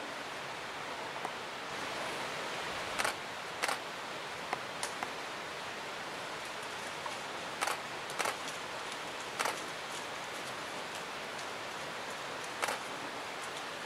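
Still-camera shutter clicks, about eight single shots spaced irregularly, some in quick pairs, over a steady background hiss.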